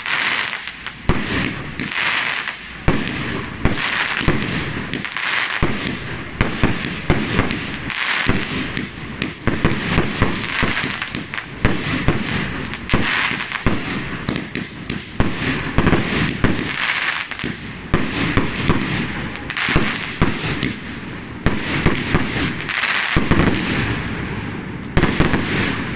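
Aerial fireworks going off in a fast, unbroken barrage of bangs and crackling bursts. A last strong burst comes near the end, then the sound dies away.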